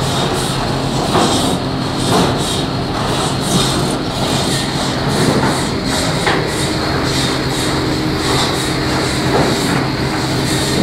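Sawmill machinery running loudly: a steady low hum from the conveyor line with irregular knocks and clatter scattered through it.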